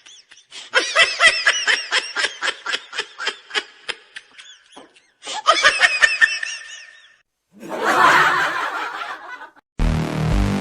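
High-pitched snickering laughter in two quick bouts of rapid 'ha-ha' pulses, then a short rough noisy burst, with electronic music cutting in near the end.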